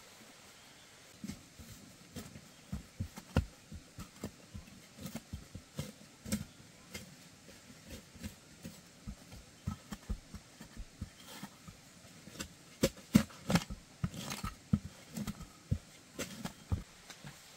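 An irregular run of light knocks and taps, several a second, starting about a second in, with the loudest few knocks past the middle.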